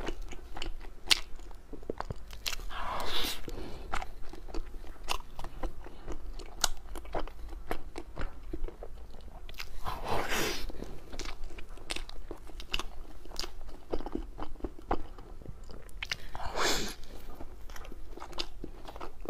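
Close-miked mouth sounds of eating soft cream-filled mochi: wet, sticky chewing and lip smacks with many small clicks, and three longer slurps about 3, 10 and 17 seconds in.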